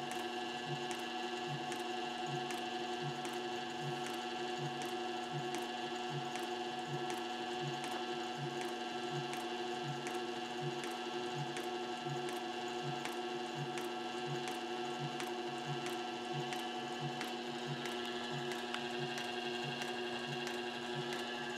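Pfaff 1245 industrial walking-foot sewing machine stitching slowly and evenly, about two stitches a second, each stitch a light knock. Its clutch motor hums steadily underneath. The slow speed comes from a reduced pulley set-up and a lengthened clutch lever on the pedal.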